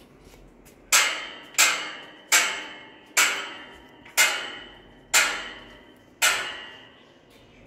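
Footsteps climbing a steel staircase with grated treads. Each step lands with a ringing metallic clang that dies away over about half a second, seven steps at roughly one a second.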